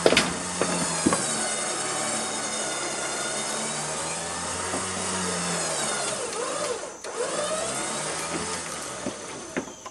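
Badlands Apex 12,000 lb electric winch running under heavy load as it rolls a roughly 3,500-lb oak log onto the trailer, its motor and gears whining with a pitch that drifts as the load changes. The run breaks off briefly about seven seconds in and picks up again, with a few sharp knocks from the log and rigging near the start and near the end.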